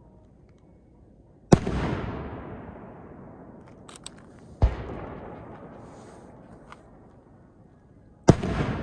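Aerial firework shells bursting: three loud booms a few seconds apart, each followed by a long rumbling echo that fades away, with a few faint crackles between them.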